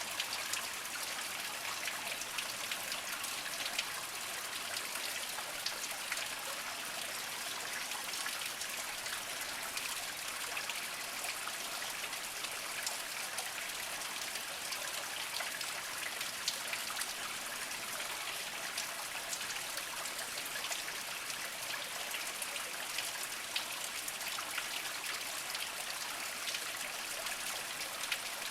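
Small spring-fed stream trickling and splashing over mossy rocks: a steady, high-pitched water hiss with many small drips and plinks.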